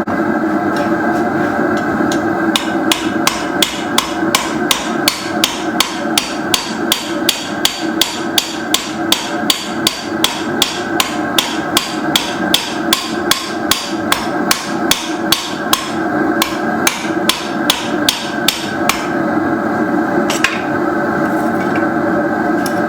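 Blacksmith's hand hammer striking hot steel on an anvil in a steady run of about two to three ringing blows a second. The blows stop near the end, with one last strike after a short pause. A steady drone runs underneath.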